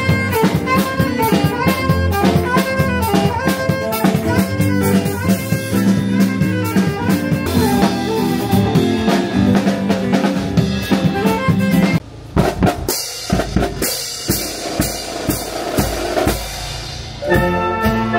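A saxophone playing a melody over a drum kit, with busy snare and bass drum strokes. About twelve seconds in the music breaks off into scattered hits, and near the end a navy band's saxophones and clarinets start playing together.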